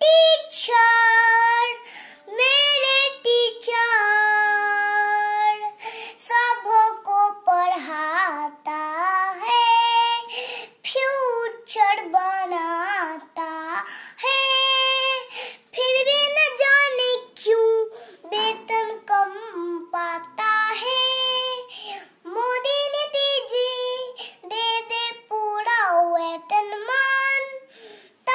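A young girl singing a Hindi song solo, with no accompaniment, holding some notes for a second or more.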